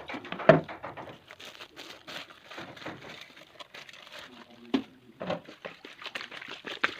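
Kitchen handling sounds as salt is fetched for cleaning snail meat: rustling and crinkling with many small clicks, and a sharp knock about half a second in and another near five seconds.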